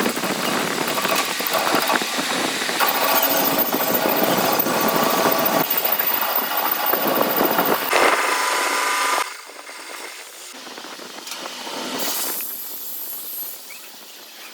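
A power tool running loudly with a steady whine, cutting off about nine seconds in, followed by quieter workshop noise with a brief hiss near the end.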